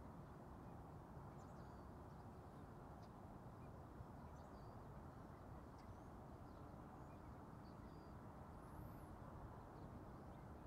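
Near silence: a faint, steady low rumble of distant airport background noise, with a few faint bird chirps scattered through it.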